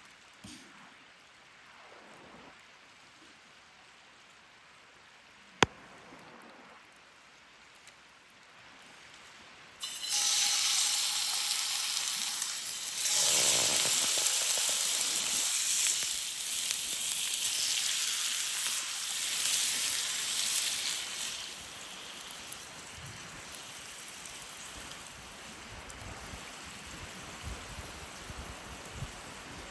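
Food sizzling in a hot pan: a single sharp click, then about a third of the way in a loud, steady sizzle starts suddenly and stays loud for around ten seconds before easing to a quieter sizzle.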